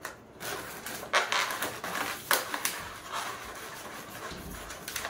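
Latex modelling balloon twisted into a heart, rubbing and squeaking under the hands as it is pressed flat against a wall to set its shape. Irregular squeaks, with sharper ones about a second and about two and a half seconds in.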